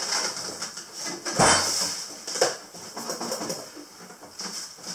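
Large cardboard box being turned over and shifted on a wooden table: rustling and scraping of the cardboard, with a loud bump about a second and a half in and a smaller one about a second later.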